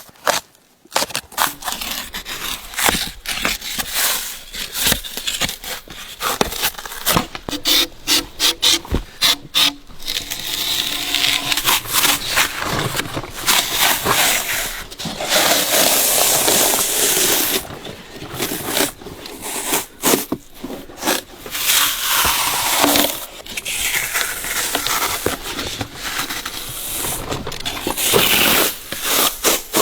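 Bark being peeled by hand from a huang bai (Phellodendron) trunk. First comes a run of sharp cracks and snaps, then, about ten seconds in, longer tearing rips as strips pull away, with the odd squeak.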